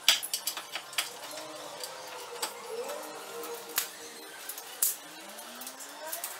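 Hand tools and bolts clinking and knocking against metal suspension parts under a car, in irregular sharp taps.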